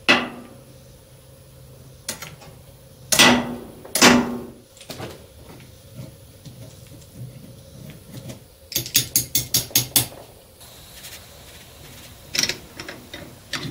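Metal hand tools clanking and clicking against copper tubing while a refrigerant line set is cut and flared. There are sharp clanks at the start and two more about three and four seconds in, a quick run of about eight clicks around nine seconds in, and a few lighter clicks near the end.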